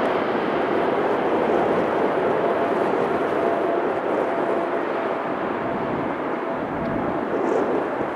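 Boeing C-17A Globemaster III's four Pratt & Whitney F117 turbofan engines at approach power on short final to land: a steady jet noise with a faint thin whine running through it, easing slightly midway and growing again near the end.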